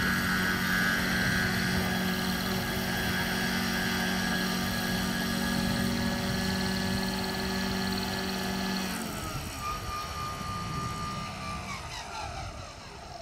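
Radio-controlled scale model helicopter running steadily with a motor whine as it settles onto the grass. About nine seconds in the power is cut, and the whine falls in pitch and fades as the rotor winds down.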